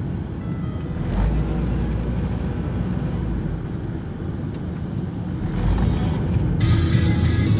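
Steady low road and engine rumble inside a moving car's cabin. About a second before the end, music comes in suddenly over it.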